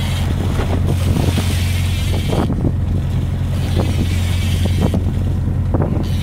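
Fishing boat's engine running at a steady drone, with wind buffeting the microphone and water sloshing against the hull.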